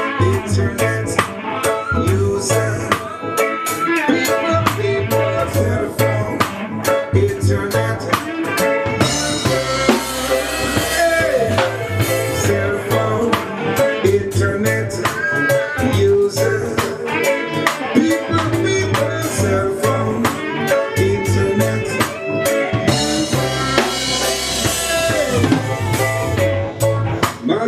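A band playing: a drum kit keeps a steady beat under a bass line and melodic instruments.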